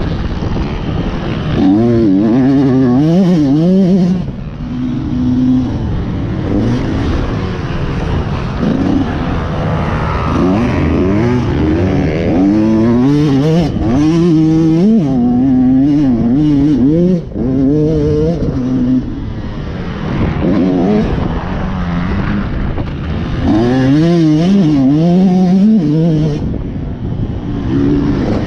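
Yamaha motocross bike's engine, heard up close from an onboard camera, revving up and falling back over and over as the rider accelerates, shifts and rolls off the throttle around a dirt track. It drops off briefly about four seconds in, again around seventeen seconds, and near the end.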